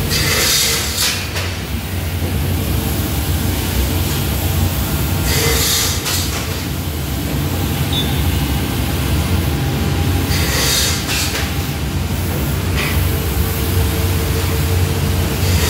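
Workshop machinery for brass plumbing fittings running with a steady low hum. A harsh high noise about a second long cuts in four or five times, every few seconds.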